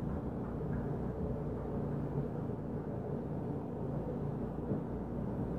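Steady low rumble with a hum, and one dull knock about two seconds in.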